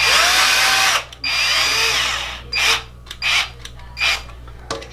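Power drill driving a small screw through a metal flange repair ring into the old toilet flange. The motor runs steadily and cuts off about a second in, then gives a shorter run and several brief trigger pulses as the screw is eased in slowly, to avoid cracking the flange or over-driving the screw.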